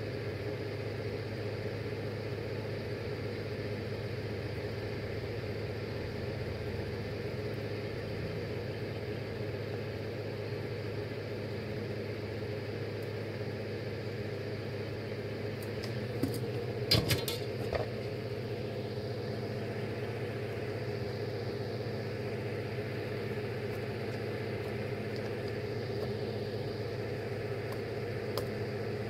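Electric fan running steadily with a low hum. A brief cluster of sharp clicks comes about seventeen seconds in.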